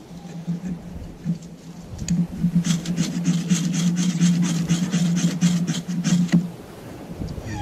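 A knife scraping rapidly and repeatedly at birch bark tinder, about five strokes a second for nearly four seconds, starting a couple of seconds in, as a campfire is being lit.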